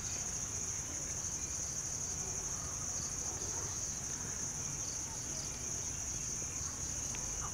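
A steady, high-pitched chorus of insects chirring without a break, over a soft low rumble.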